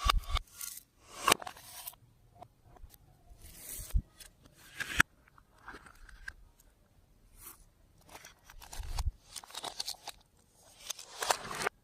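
Clear slime being worked by hand: a run of irregular sticky crackles and squishes, with a couple of dull thumps.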